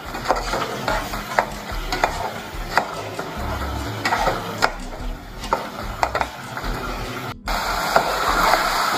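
A spoon stirring and scraping thick mutton curry in a metal pot, with repeated knocks of the spoon against the pot over the sizzle of the masala frying (bhuna) on the stove. The sound cuts out for an instant about seven seconds in, then comes back a little louder.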